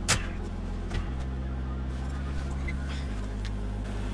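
Light clicks from a clear plastic sheet and plastic cups being handled on a bench: a sharp click at the start and a fainter one about a second in, over a steady low hum.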